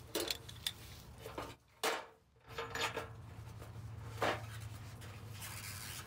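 Light clicks and scraping of metal tools handled on a steel car fender as a spotter's dent-puller tip is set down and the brass ground fitting is worked by hand, over a steady low hum.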